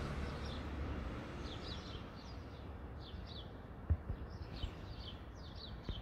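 Small birds chirping in short repeated bursts over a steady outdoor background hum, with a couple of brief low thumps in the second half.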